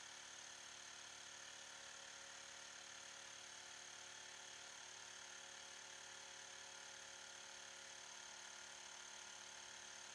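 Mi portable electric air compressor running steadily as it inflates a football: a faint, even motor whir and pump hum with a thin high whine.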